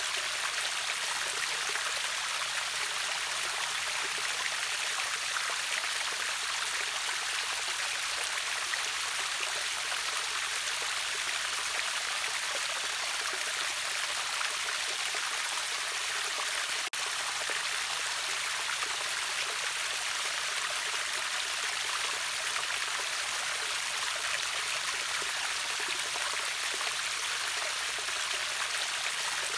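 Steady, unbroken rushing of a river waterfall, a bright hiss of falling and flowing water with no change in level except a momentary dip about seventeen seconds in.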